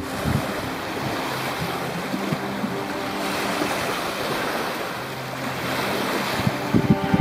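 Small Lake Michigan waves breaking and washing up on a sandy beach in a steady rush, with wind on the microphone. Music starts to come in near the end.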